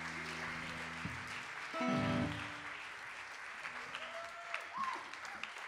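Audience applauding, with a held amplified chord ringing under it that stops about a second in, then a short louder chord about two seconds in. The clapping thins out toward the end.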